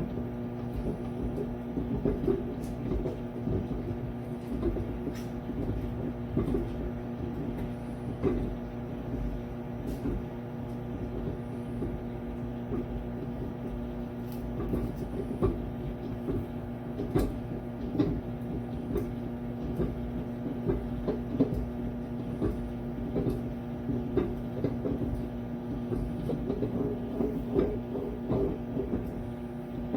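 Toshiba countertop microwave/air fryer combo oven running with a steady electrical hum, with scattered light clicks and knocks over it.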